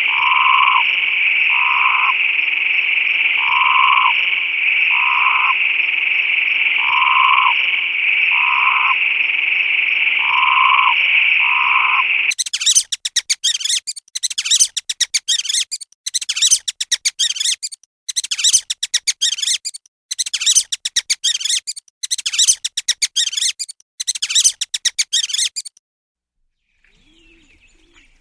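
A frog chorus: a steady high trilling drone with a short lower call about every second and a half. About twelve seconds in it cuts to a different animal giving seven rapid, high, chattering trills, each about a second and a half long with short gaps between.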